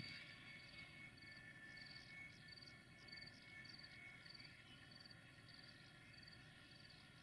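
Near silence: a faint cricket chirping regularly, about two to three short high chirps a second, over a low background rumble.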